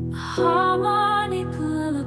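Music from an AI-generated song: held low chords with a wavering melody line coming in about half a second in.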